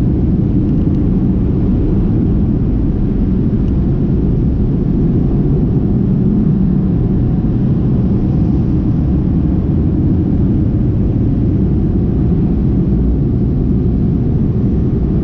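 Car wash dryer blowers running at the tunnel exit, a steady low rumble heard muffled through the car.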